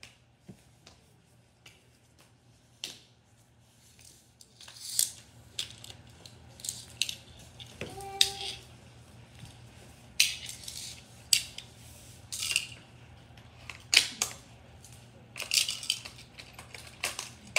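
Plastic Hot Wheels track pieces and toy cars being handled and fitted together: a few scattered clicks, then from about four seconds in a busy run of short scrapes, rattles and clicks.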